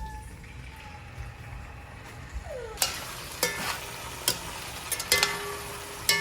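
Food sizzling in a pan while a utensil stirs it, clicking against the pan several times from about three seconds in.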